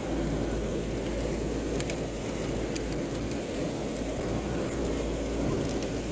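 A vehicle driving through floodwater, heard from inside the cab: a steady low rumble of engine and water washing around the vehicle.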